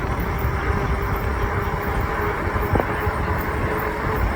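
Riding noise of a fat-tire electric bike on a paved road: wind rushing over the microphone and the rolling hum of the fat tyres, with a faint steady tone and a single tick almost three seconds in.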